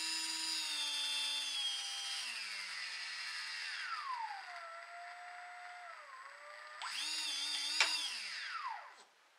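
Brushless boat motor driven by an Eachine SS Series 125A ESC, whining at speed, then its pitch sliding down slowly as it coasts with the brake set to no brake. It is revved again about seven seconds in and winds down to a stop near the end.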